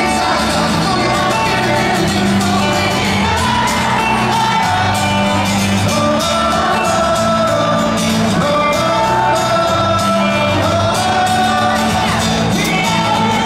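Live acoustic rock song: acoustic guitars strummed under a sung lead vocal, with shouting and whoops from the crowd.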